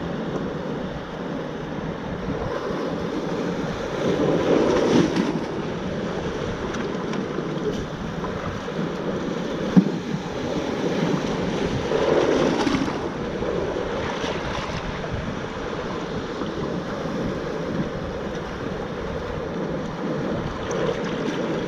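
Surf washing and breaking over a rocky shoreline at the waterline, with wind on the microphone. Two bigger waves surge through about four and twelve seconds in, and there is one sharp knock near the middle.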